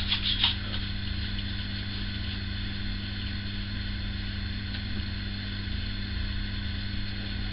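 Steady mechanical hum with a fixed low tone, with a click at the very start and a few faint ticks in the first half second.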